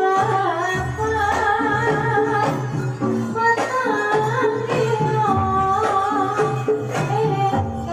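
Javanese barongan and jathilan accompaniment music played live through a sound system: a singer's wavering, ornamented melody line over steady bass notes and regular drum strokes.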